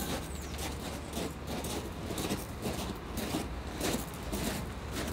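Footsteps crunching on a gravel path, two people walking in rubber boots at about three steps a second, over a steady low rumble.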